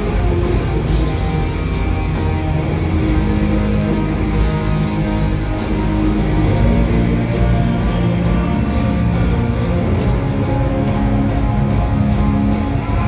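Live heavy rock band over a stadium PA, heard from the stands: electric guitars, bass and drums, with cymbal hits at a regular beat.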